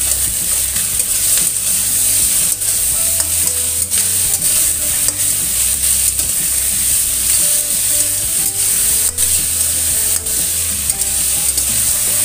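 Carrots, tomato and onion sizzling in hot oil in a stainless steel wok, stir-fried with a spatula that scrapes and clicks against the pan at irregular moments.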